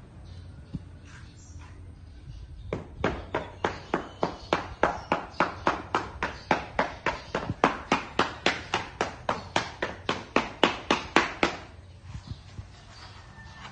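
Mason's steel trowel scraping and chopping through a pile of sand mix on a concrete floor. The strokes come quick and even, about three or four a second; they start about three seconds in and stop shortly before the end.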